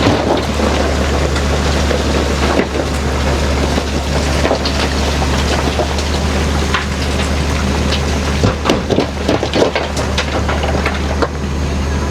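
Heavy bulldozer's diesel engine running steadily under load, with rock clattering and scraping as it pushes. A cluster of sharp knocks comes about two-thirds of the way through.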